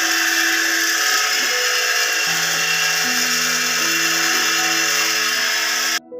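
Water from a hose spraying onto a motorcycle to rinse off the soap, a steady loud hiss and splash that cuts off abruptly near the end. Soft background music with held notes plays underneath.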